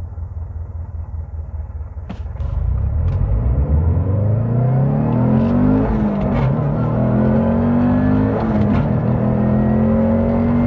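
Subaru WRX STI's turbocharged flat-four on its stock VF48 turbo with internal wastegate, pulling hard through the gears. It rumbles low for about two seconds, then gets louder and rises in pitch, dropping back twice at gear changes and climbing again, with a few sharp clicks along the way.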